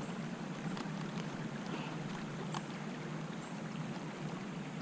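Steady rush of a shallow creek running over gravel, with a few faint clicks.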